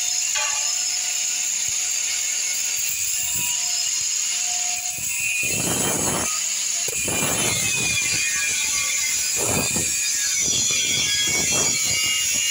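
Handheld angle grinder with a cut-off disc cutting steel square tube. It runs with a steady high-pitched whine, and from about halfway the sound grows fuller in several short bursts as the disc bites into the metal.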